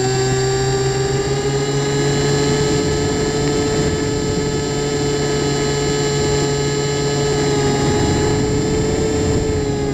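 Electric motor and propeller of a Finwing Penguin FPV model airplane in flight, a steady high-pitched whine at nearly constant throttle.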